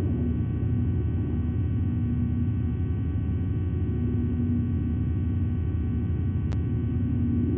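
Steady low rumble of background noise with a faint hum that fades in and out, thin electrical whine tones above it, and one brief click near the end.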